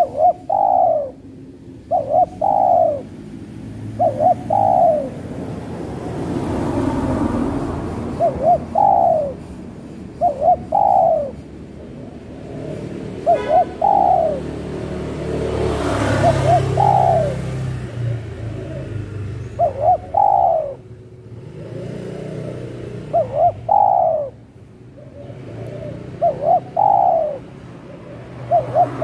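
Spotted dove cooing: short phrases of two quick notes and a longer falling one, repeated every two to three seconds. Passing traffic rumbles underneath and swells twice, about 7 and 16 seconds in.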